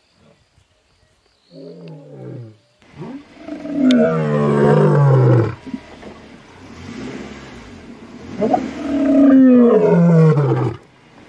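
Male lion roaring: a short low call about a second and a half in, then two long, loud roars, each falling in pitch, the second ending shortly before the end.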